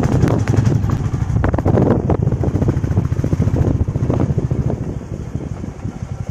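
Royal Enfield Classic 350's single-cylinder engine running as the motorcycle rides over a rough dirt track, with knocks and rattles from the bumps. It eases off near the end, and the engine's even beat comes through more plainly.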